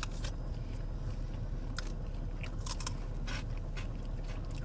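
Someone chewing Twisties, puffed corn snacks: irregular crisp crunches, roughly one every second, over a low steady hum.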